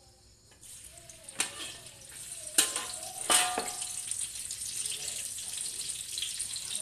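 Chopped garlic sizzling in hot oil in a metal wok: the sizzle starts about half a second in and grows louder and steadier as the garlic goes in. Three sharp metal clacks sound in the first half as the garlic is scraped into the wok.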